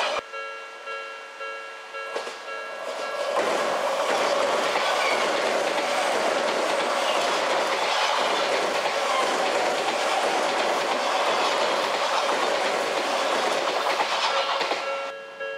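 Japanese level-crossing warning bell ringing in a repeating clang, about two strikes a second, then an Odakyu Line electric train runs over the crossing from about three seconds in, its loud passing noise covering the bell, which comes back as the train clears near the end.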